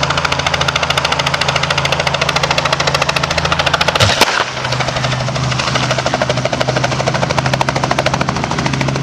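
Small two-blade helicopter hovering low, its rotor beating in a rapid, even chop over the engine's steady note. About four seconds in comes one sharp, loud crack as the overhead power lines arc in a shower of sparks, and the engine note changes after it.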